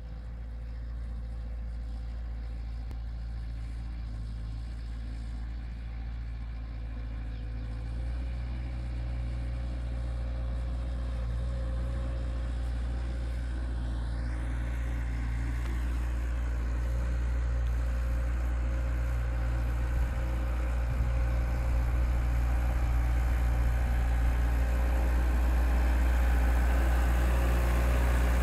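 Volvo L35B compact wheel loader's diesel engine running steadily as the loader drives across the grass toward the listener, growing gradually louder as it comes closer.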